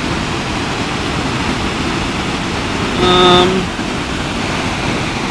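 Steady rush of a mountain waterfall pouring over rock. About three seconds in, a short held tone with several overtones, like a hummed note, rises above the rush for just over half a second.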